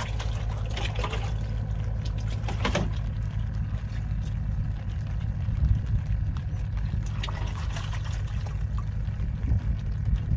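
Water sloshing and dribbling in a plastic bucket as a fish is washed and cleaned by hand, with short scraping splashes scattered through, over a steady low rumble.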